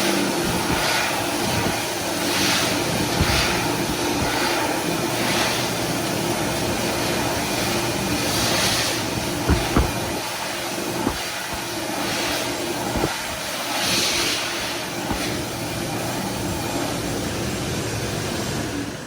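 Toto Clean Dry high-speed hand dryer running: a steady rush of air over a steady motor tone.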